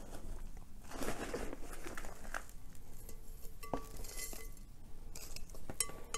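Repotting handling sounds: potting soil and roots rustling as a plant is lifted out, and a black plastic nursery pot being worked out of a ceramic planter, with a few light clicks and knocks.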